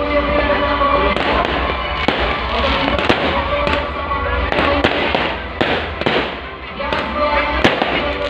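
Fireworks going off in a steady series of sharp bangs and crackles, about one or two a second, over music played through loudspeakers and crowd voices.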